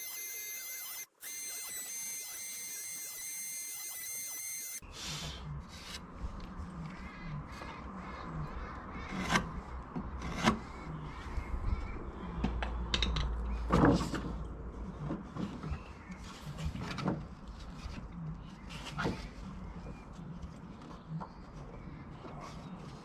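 Wood chisel being worked on timber to pare down a pre-cut joint so it fits: a string of sharp, irregular knocks, the loudest about ten and fourteen seconds in. It opens with a few seconds of a steady sound of several held pitches that cuts off abruptly about five seconds in.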